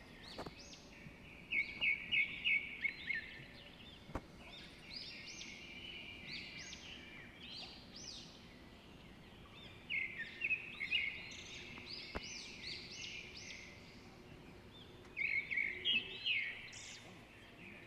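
Songbirds singing and chirping, several overlapping calls at once, with three bursts of rapid, louder notes: one a couple of seconds in, one about ten seconds in, and one near the end.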